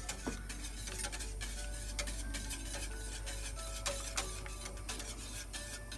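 A wire whisk stirring egg-and-milk custard in a saucepan, with light clicks and scraping against the pan, under soft background music.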